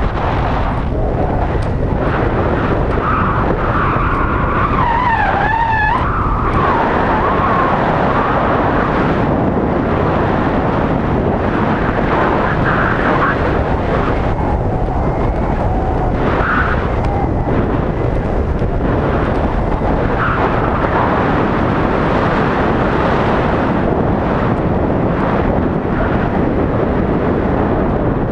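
Strong wind rushing and buffeting over the microphone of a pole-held action camera during a parasail flight, a loud steady roar of air.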